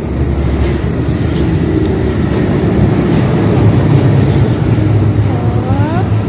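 Ankaray light-metro train pulling into an underground station platform: a loud, steady rumble of the carriages running past, with a short rising squeal near the end.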